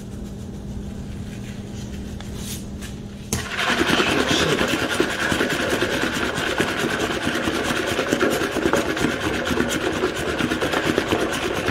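Raw cauliflower florets tumbling and rubbing against each other and the sides of a plastic mixing bowl as it is shaken to coat them with seasoning: a steady rustling rattle that starts suddenly about three seconds in.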